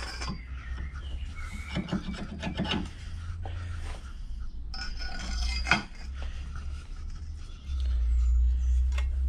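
Bench vice being wound tight with a pipe over its handle, pressing a ball bearing into a copper coin: the screw and jaws creak and rasp under heavy load, with scattered clicks. Underneath is a low rumble that gets louder near the end.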